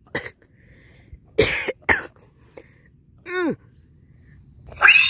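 A person making short non-word vocal noises. There are several short harsh bursts in the first two seconds, a squeal falling in pitch about three seconds in, and a loud harsh cry near the end.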